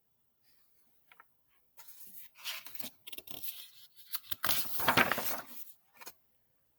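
Paper rustling and crinkling in irregular bursts for a few seconds, as a page of a picture book is handled and turned.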